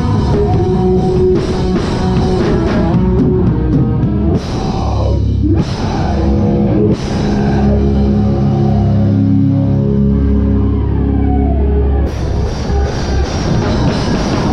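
Hardcore band playing live, heard from behind the drum kit: drums and heavy guitars pound for about four seconds. A few crash hits and a falling pitch slide follow, then held, ringing guitar and bass chords. The full drum kit comes crashing back in about twelve seconds in.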